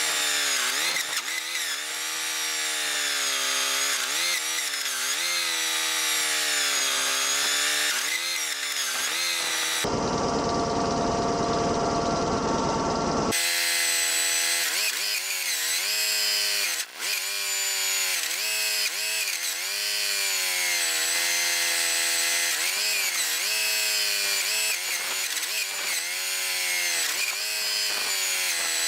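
A power-driven motor spins while wood is worked; its pitch keeps sagging and recovering as the load changes, over a steady scraping hiss. About ten seconds in, a duller stretch of machine noise lasts a few seconds.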